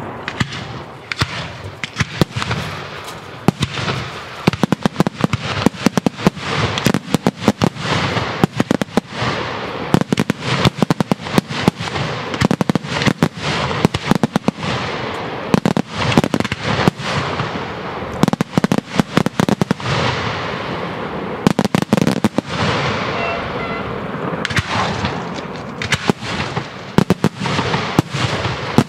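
Daytime aerial fireworks shells bursting in a dense, unbroken barrage: many sharp bangs in quick succession, at times so close together that they run into one another.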